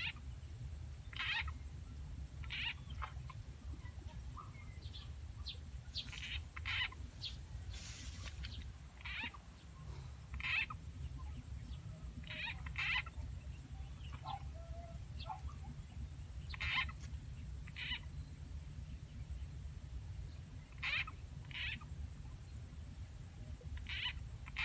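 Frog calls, short croaks repeated irregularly about once a second, from a frog-call recording played on a loop to lure frogs, over a steady high whine.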